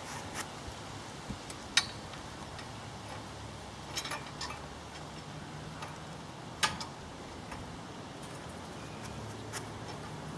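Hard cricket-ball knocks: two sharp loud ones about five seconds apart, with fainter clicks between, over a low steady hum.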